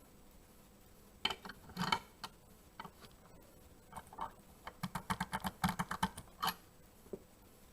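Light clicks and taps of small metal parts being handled: a few separate clicks early on, then a quick run of about eight clicks a second lasting under two seconds, ending with a single click.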